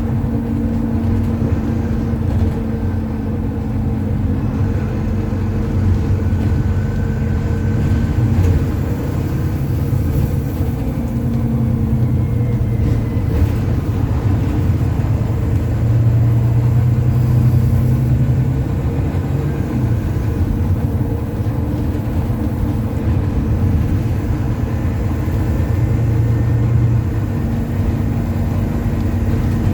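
Volvo B9TL double-decker bus's six-cylinder diesel engine running under way, heard from inside the bus, its note shifting with the revs.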